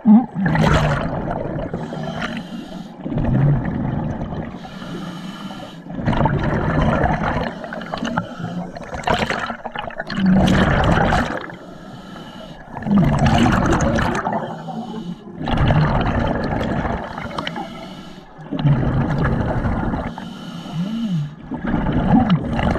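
Scuba diver breathing through a regulator underwater: slow, regular breaths about every three to four seconds, each exhale a loud rush of bubbles, with a short low tone from the regulator between them.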